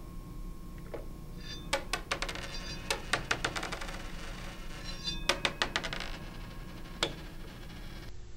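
Pennies flung off a spinning metal turntable, clinking and clattering as they land and bounce, in three quick clusters of sharp clicks and one last click near the end, over a faint steady hum.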